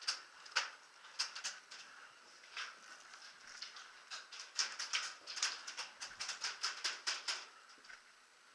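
Airsoft guns firing in the room: a string of sharp, irregular clicking shots, thickest in a run of several a second from about four to seven and a half seconds in, then stopping.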